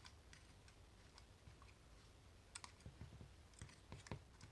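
Faint, scattered clicks and light taps from a small quartz travel alarm clock, with a few closer together near the middle and the end.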